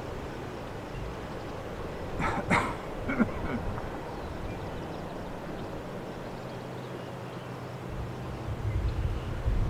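A dog barks twice, then gives a few softer yelps, over a steady low hum. A low rumble builds near the end.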